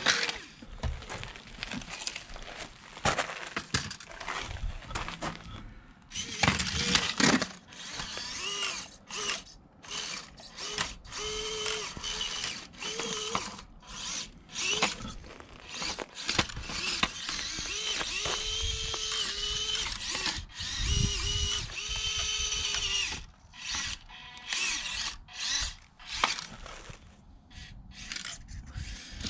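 Orlandoo 1/32 Toyota Tundra micro RC crawler's small brushed motor and gears whining in short bursts, rising and falling in pitch with the throttle, with clicks and scrapes from the tyres working over gravel and wood.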